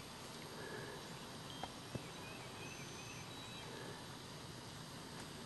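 Quiet snowy outdoor ambience: a steady faint hiss with scattered faint, short bird chirps and whistles, and two faint clicks about one and a half and two seconds in.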